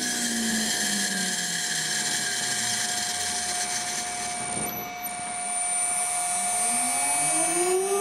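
Washing machine's 240 V induction motor spinning free on a variable frequency drive, with a steady high whine. Its hum sinks a little in pitch at first, then climbs steadily in the last few seconds as it speeds up.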